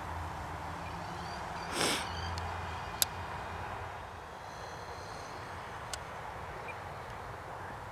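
Faint whine of a Blade Manta RC delta wing's electric pusher motor in flight at a distance, over a steady outdoor hiss. There is a brief rush of noise about two seconds in and sharp clicks about three and six seconds in.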